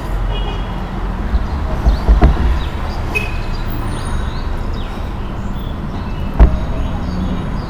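Steady low background rumble, with a knock about two seconds in and a louder knock past six seconds.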